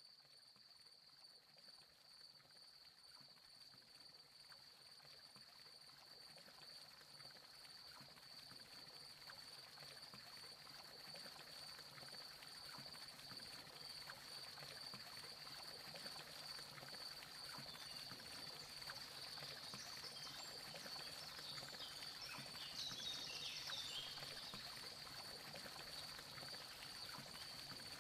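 Night ambience of crickets: a steady, high-pitched trill that fades in gently, with a short burst of chirping a little over twenty seconds in.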